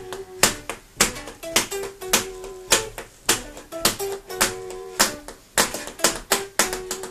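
Live band playing an instrumental intro: electric guitar and bass notes held under sharp, rhythmic percussive hits that come several times a second and are the loudest sound.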